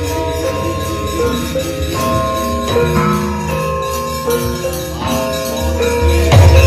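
Javanese gamelan music with metallophones ringing in steady interlocking notes and metallic jingling over them. A loud low thump comes about six seconds in.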